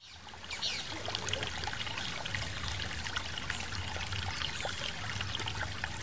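River water running and trickling over rocks, fading in from near silence at the start and then steady.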